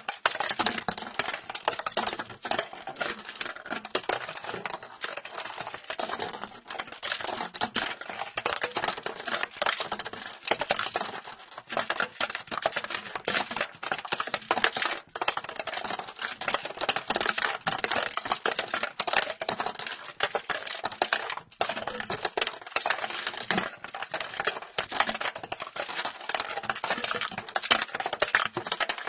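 A small ball rattling inside a rotating plastic box: a dense, continuous stream of light clicks and knocks as the ball rolls and strikes the box walls.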